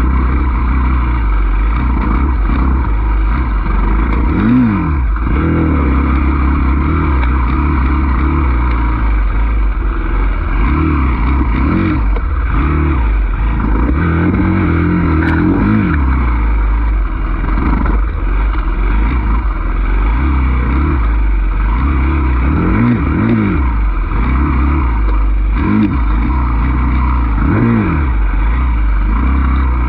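Enduro dirt bike engine on the trail, revving up and dropping back again and again as the throttle is opened and closed.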